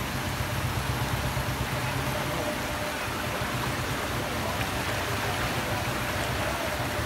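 Fast-flowing floodwater rushing across and past a road crossing, a steady rushing noise. A low hum underneath stops about two and a half seconds in.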